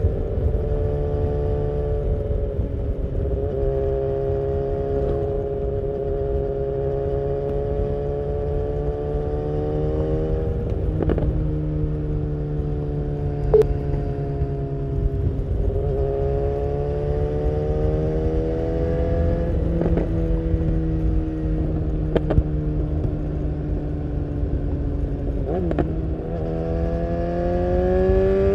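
BMW S1000R inline-four engine through an Akrapovic full exhaust, heard on board while riding at fairly steady revs that sag and pick up a little. There are a few short knocks along the way, and near the end the revs climb as the bike accelerates.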